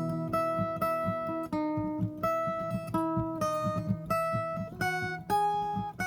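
Viola caipira played solo: a slow melody of held plucked notes, one or two a second, over a quicker picked accompaniment on the lower strings.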